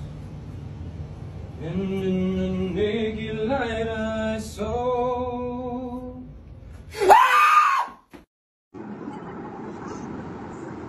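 A man sings or hums a few held, stepping notes, and about seven seconds in someone lets out a short, loud scream, the startled cry of a scare prank.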